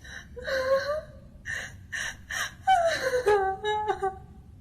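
Frightened gasping and whimpering: a run of short, breathy vocal cries whose pitch slides up and down, the densest and loudest about three seconds in.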